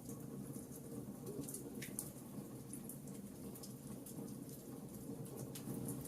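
Wood fire burning in a fireplace: a steady low rumble of the flames with scattered small crackles and pops, one slightly louder pop about two seconds in.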